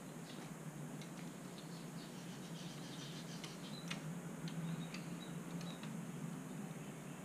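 Faint scattered clicks and light taps from a kitten clambering onto the top of a wooden birdcage and a hill myna hopping about inside, over a steady low hum.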